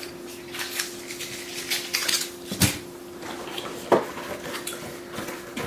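Small plastic parts and packaging being handled: irregular light clicks and rattles, the sharpest about two and a half and four seconds in, over a faint steady hum.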